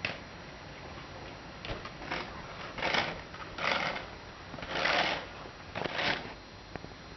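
Footsteps crunching through deep snow: a series of slow, uneven crunches about a second apart, the loudest near the middle.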